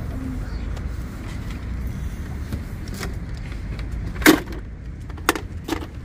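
A sharp knock about four seconds in, followed by two lighter knocks near the end, over a steady low outdoor rumble.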